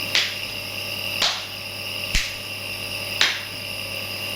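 Four sharp snapping clicks, evenly spaced a little over a second apart, over a steady low hum.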